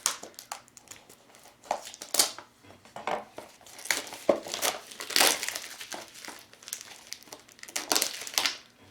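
Plastic packaging crinkling and tearing in irregular bursts as a stubborn toy package is cut and pulled open.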